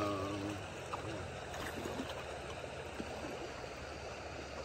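Shallow stony river running past: a steady rush of flowing water.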